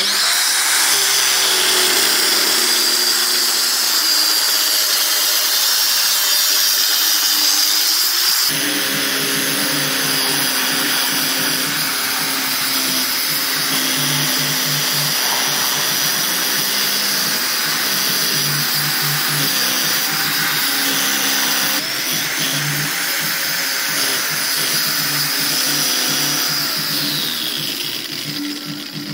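Handheld electric circular saw running and cutting through MDF board: a steady high whine over the noise of the blade in the board. Background music with a pulsing beat comes in about eight seconds in.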